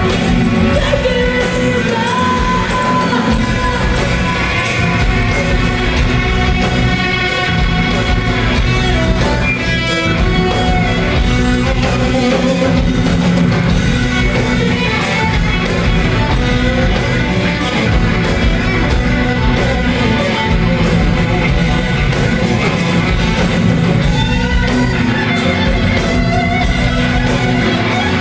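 Live rock band playing loudly: a woman singing over electric guitars, bass, keyboards and drums, heard from the audience in a large, reverberant hall.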